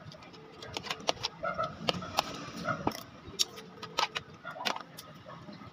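Close-up eating sounds of a person eating rice by hand: irregular wet clicks of chewing and lip smacks, with a few light taps.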